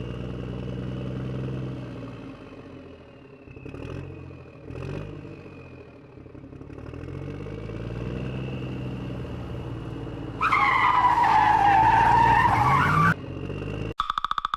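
Car engine revving up and down, with two short knocks about four and five seconds in, then a loud tyre squeal lasting about three seconds, and rapid beeping starting near the end.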